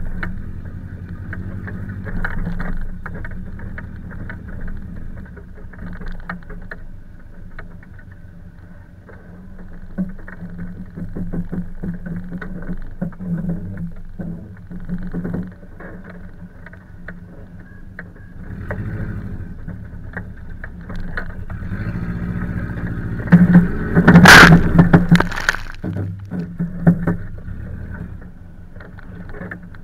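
Subaru Forester driving slowly over rough grass, its engine running steadily under many small knocks and rattles from the body and mud-terrain tyres. A louder burst of noise comes about three-quarters of the way through.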